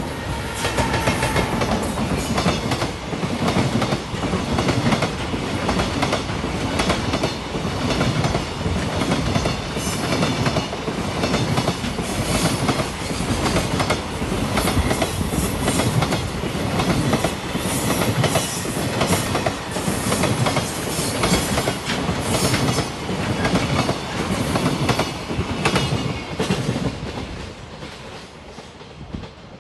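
Freight train wagons rolling past at close range, their wheels clattering rhythmically over the rail joints with a constant rumble, the sound easing near the end as the last wagons go by.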